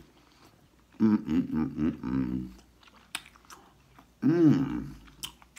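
A man chewing a mouthful of food with small wet mouth clicks, making wordless humming "mmm" sounds of enjoyment: a wavering stretch about a second in, then one rising-and-falling hum near the end.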